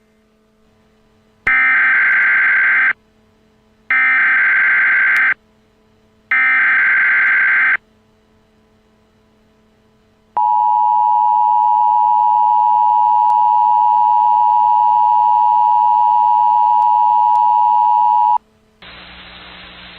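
Emergency Alert System header: three identical buzzy data bursts of about a second and a half each, a second apart. Then the steady two-tone EAS attention signal sounds for about eight seconds and cuts off, announcing a severe thunderstorm warning. Near the end a steady hiss of static starts.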